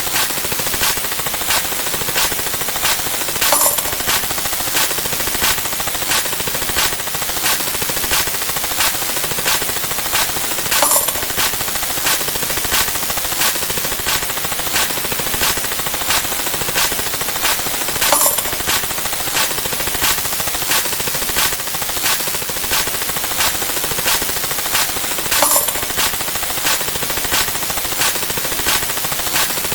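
Rapid, evenly spaced clicks, about three a second, from stacked looping sound effects, with a brighter ringing clink about every seven seconds.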